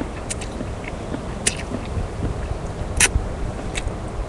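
Person eating ramen noodles: a few short sharp clicks of eating, the loudest about three seconds in, over steady low background noise.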